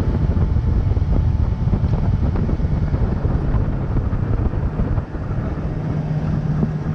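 Wind buffeting the microphone over the rush of a flats skiff running at speed on a Yamaha 70 outboard, water spraying off the hull. A steady hum comes up about five seconds in.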